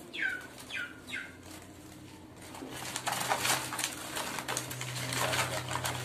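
Three quick falling bird chirps in the first second, then from about three seconds in a paper bag crackling and rustling as a small flowerpecker (mountain taloan) flutters inside it while being tipped into a cage.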